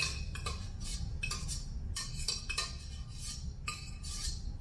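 Kitchen utensils and dishes being handled, giving a string of short, irregular clinks and rattles over a low steady hum.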